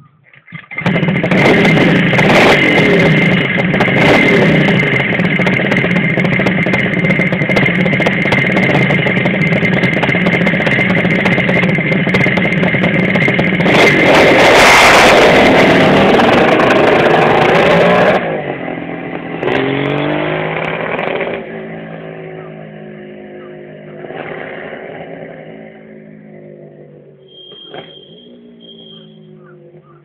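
Kawasaki H2A 750SS Mach IV's two-stroke triple running loud and steady, then revved hard about fourteen seconds in as the bike pulls away. It climbs through the gears, each rise in pitch fainter as it rides off.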